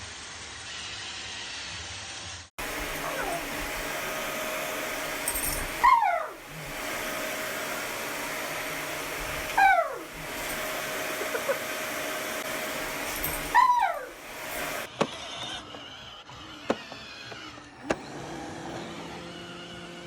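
A vacuum cleaner motor running steadily with a steady hum. Three loud cries falling in pitch sound over it, about four seconds apart. The sound cuts abruptly between clips, near the start and again after about fifteen seconds, when a quieter stretch with a few sharp clicks follows.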